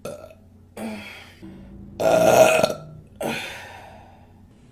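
A woman burping several times in a row, the loudest and longest burp about two seconds in.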